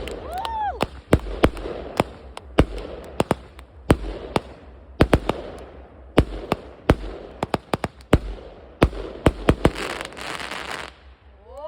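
Fireworks going off: a rapid, irregular string of sharp bangs and pops, with a brief whistle about half a second in and a dense crackling hiss near the end.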